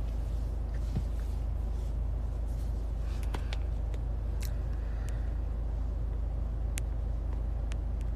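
Steady low rumble inside the cabin of a stopped car, with a few faint, sharp clicks and taps from about three seconds in.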